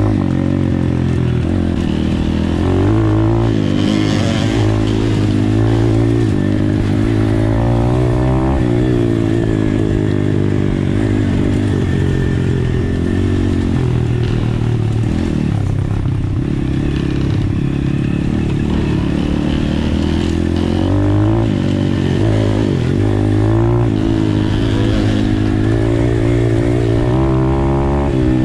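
Apollo RFZ pit bike's single-cylinder four-stroke engine running hard under a moving rider, its pitch rising and falling again and again as the throttle is opened and closed and the gears change. Wind rushes over the helmet microphone throughout.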